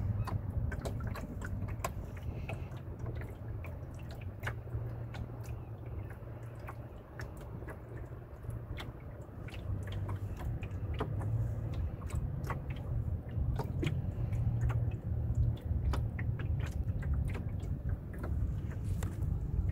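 Water lapping and splashing against the hull of a small sailboat under way: many small irregular slaps and drips over a low steady rumble.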